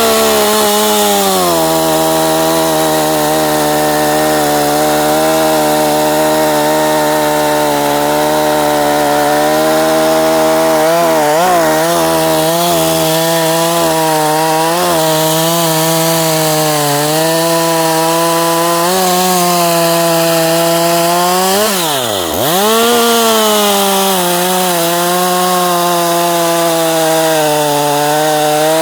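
Stihl MS201TC two-stroke top-handle chainsaw running at high revs while cutting through a seasoned oak log. Its pitch holds steady and wavers slightly under load. About three-quarters of the way through it drops sharply and comes back up.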